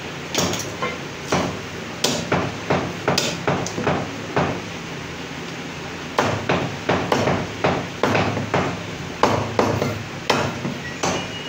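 Meat cleaver chopping a goat's head on a wooden chopping block: a run of quick blows, about two or three a second, a pause of a second and a half while the pieces are moved, then another run of blows.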